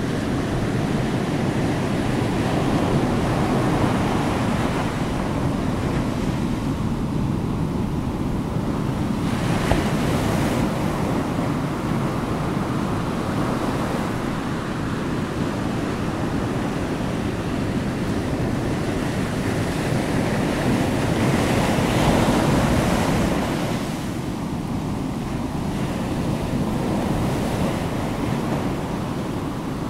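Continuous rushing noise, swelling and easing every several seconds, with no clear clicks or tones.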